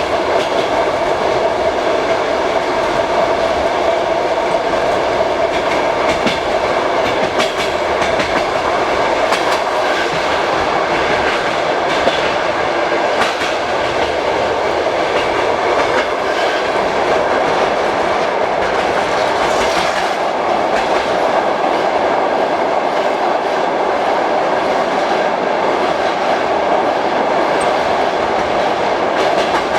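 Passenger train's wheels running on the rails, a steady loud rumble with scattered clacks, heard through an open compartment window.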